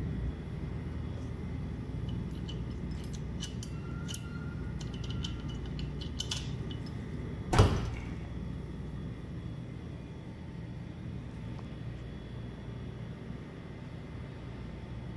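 Light metallic clicks and jingles from the key and latch handle of an ultra-low freezer's door, then one loud clunk about halfway through as the handle is pulled and the latch lets go. A steady low hum runs underneath.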